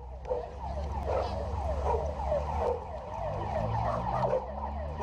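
Siren in a fast yelp, falling sweeps about three a second, over a motorcycle engine running.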